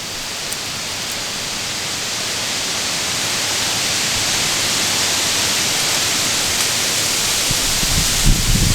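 Strong wind blowing through the trees, a steady hiss that builds gradually. Near the end, low rumbles of wind hitting the microphone begin.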